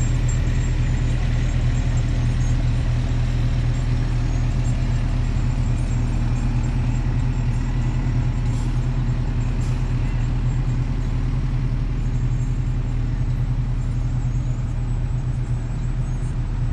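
Steady low engine rumble from a fire engine and an SUV rolling slowly past in a parade line, easing slightly near the end, with two brief high hisses about halfway through.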